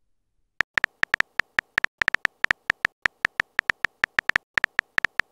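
Keyboard typing sound effect from a texting-story app: a quick, irregular run of short beep-like taps, several a second, one tap per letter as a chat message is typed. The taps start about half a second in.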